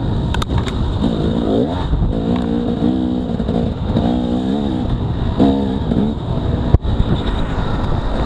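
Dirt bike engine on a trail ride, revving up and down repeatedly as the throttle is worked, over a steady rush of low noise. One sharp knock comes about seven seconds in.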